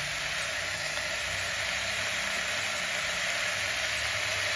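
Steady sizzling hiss of mutton pieces and small onions frying in hot oil in an open pressure cooker.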